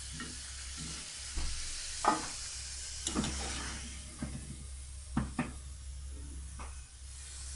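Hot oil sizzling steadily in an iron wok as fried potato fries are scooped out, with about six sharp clinks and scrapes of a metal ladle against the pan, the loudest about two seconds in.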